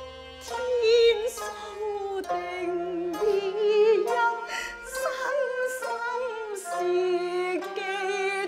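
A woman singing a slow, wavering Cantonese opera line with heavy vibrato, over instrumental accompaniment; the singing comes in about half a second in.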